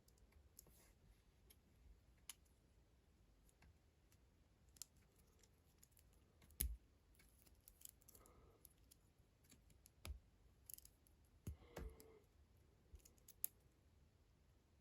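Faint, scattered clicks and taps of small plastic LEGO pieces being handled, about a dozen in all, the loudest a little past halfway.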